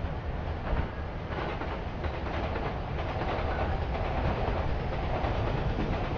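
Steady rumble of passing vehicles at a city crossing, growing louder about three seconds in.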